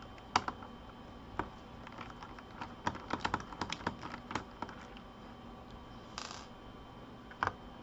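Irregular light clicks and taps of plastic and small parts as a Toshiba Satellite laptop is handled during disassembly, with a quick flurry of clicks about three seconds in, a brief rustle near six seconds and a last click near the end.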